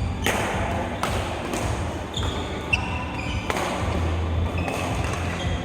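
Billiard balls clicking against each other and against the cue tip, a string of sharp knocks at irregular spacing over a steady low hum from the room.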